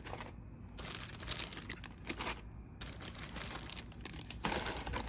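Plastic bags and parts of a model kit crinkling and rustling as they are handled, in irregular bursts of crackle.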